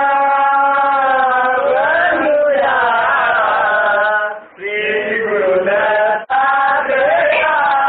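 A man singing a devotional chant to Guru Dattatreya in long, held, slightly wavering notes, with a short break for breath about four and a half seconds in and a brief cut just after six seconds.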